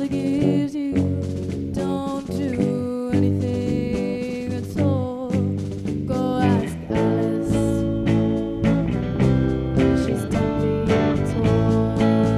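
A live band playing a song, with a woman singing over a Telecaster-style electric guitar, electric bass and drums.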